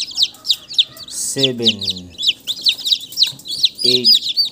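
Newly hatched chicks (Rhode Island Red, Black Australorp and Barred Plymouth Rock) peeping rapidly and without pause. Two short low voice-like sounds come in, a falling one about a second and a half in and a brief one near the end.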